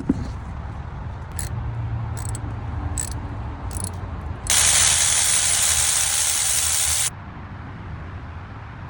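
Mercedes-Benz S500 V8 engine running with a steady low rumble and a few sharp ticks; the owner reports it as misfiring with an O2 sensor fault. About halfway through, a loud steady hiss starts suddenly, lasts about two and a half seconds and cuts off abruptly.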